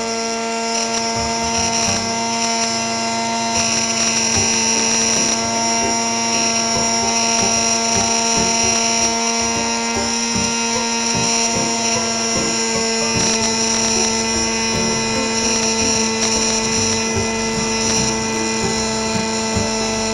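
Homemade bench grinder's small electric motor running steadily with a whine while a steel chisel blade is held against its abrasive wheel and ground, sharpening the edge.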